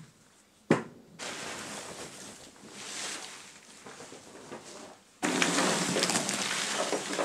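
A single knock, then chopped charcoal rattling and clattering through a wooden screening box as it is worked. The clatter breaks off briefly and comes back louder about five seconds in.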